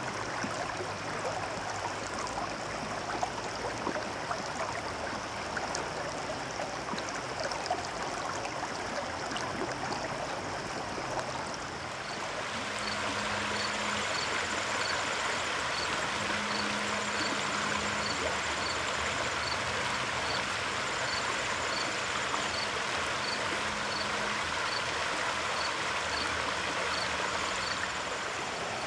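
Shallow rocky river running over stones: a steady rush of water. About twelve seconds in it becomes a brighter, slightly louder rush, with a faint high chirp repeating about every two-thirds of a second.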